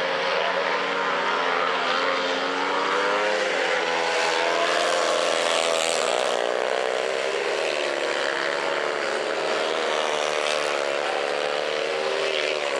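Two speedway motorcycles racing, their 500cc single-cylinder methanol engines running hard and loud, the pitch rising and falling as the riders throttle through the bends.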